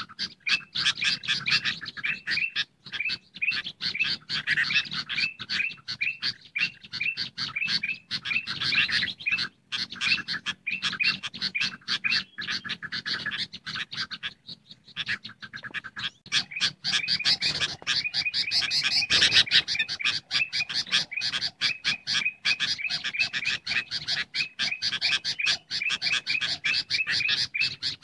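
Bird-lure recording of agitated sooty-headed bulbuls chattering, mixed with other bulbul calls. It is a dense run of fast, repeated chirps, with a brief pause about halfway through.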